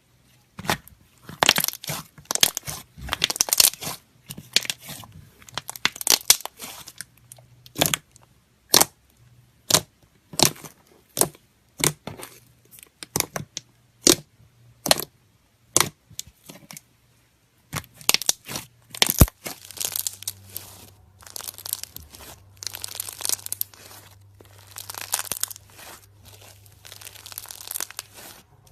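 Slime being squished and pulled by hand, giving a run of sharp, irregular crackling pops, with a pause of about two seconds about halfway through before longer crackly stretches.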